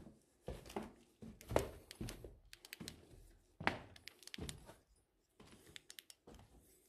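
Footsteps on a floor strewn with rubble and debris, uneven steps with small clicks and scrapes of grit underfoot, fainter after about five seconds.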